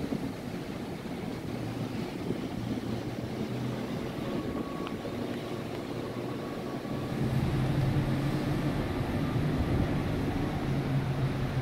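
Low, steady boat-engine hum under wind and rushing water, growing louder about seven seconds in.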